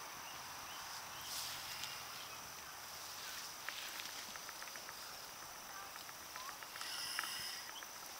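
Quiet pasture ambience: a steady, thin, high insect drone with light rustling and a scattering of small ticks in the middle.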